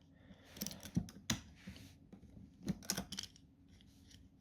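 A few light clicks and knocks on hard plastic, in two short clusters about a second in and around three seconds in: the pressure washer's plastic switch housing being tapped and handled to free the switch.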